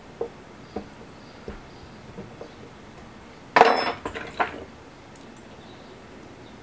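Drum-making work with hand tools: light taps at a steady pace of a bit less than one a second, then a loud clinking clatter about three and a half seconds in, followed by two smaller knocks.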